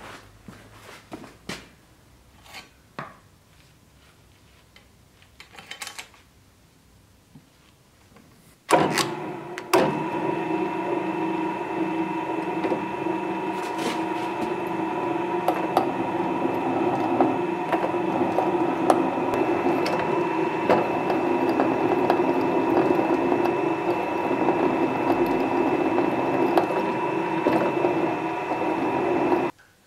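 Drill press running and drilling into a steel block clamped in a machine vise: a steady motor hum with metal-cutting noise that starts suddenly about a third of the way in and cuts off abruptly just before the end. Before it, only a few light clicks and taps.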